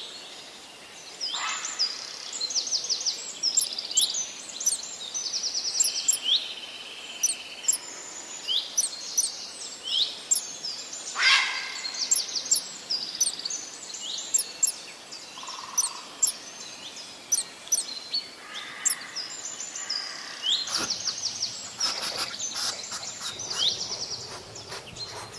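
Small songbirds singing and calling: repeated short rising whistles and fast, high trills, with one louder call about eleven seconds in. In the last few seconds a quick run of dry clicks joins the song.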